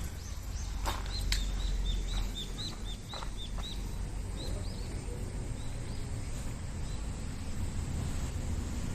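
A bird chirping: a quick run of short high chirps, about three a second, for the first half or so, over a steady low rumble, with a few sharp clicks near the start.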